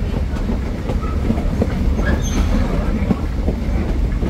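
Vintage railway passenger coach rolling along the track: a steady low rumble with the wheels clacking over rail joints.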